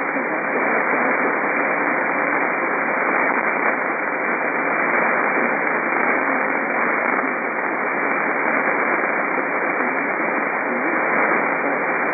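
Weather radio broadcast buried in heavy static hiss, with the warning voice only faintly audible beneath it. The sound is thin and narrow, like poor radio reception, with a faint steady tone running under the hiss.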